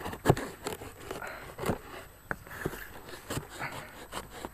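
Utility knife blade slicing through packing tape and cardboard along a box seam: irregular crackling and scraping with sharp clicks, the loudest about a quarter-second in.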